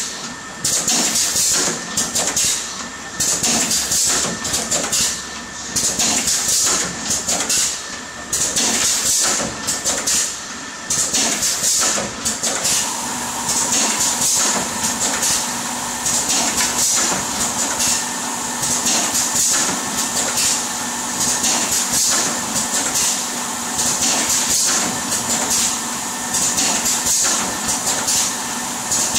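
GGS-110A plastic ampoule filling and sealing machine running: its pneumatic cylinders cycle with repeated bursts of air hiss and sharp clacks about every two seconds. A steady mechanical hum joins about halfway through.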